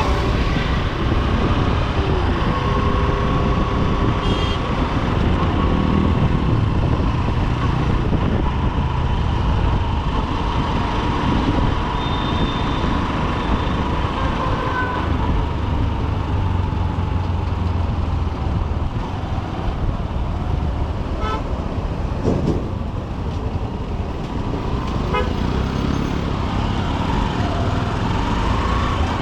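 Honda SP125 single-cylinder motorcycle engine running in heavy city traffic, with a steady low rumble, while other vehicles' horns honk with long, held tones.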